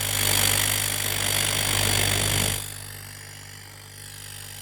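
Salvaged refrigerator compressor running with a steady electric hum, as a repurposed air compressor. A loud hiss of air runs over it for about the first two and a half seconds, then cuts off suddenly, leaving the hum.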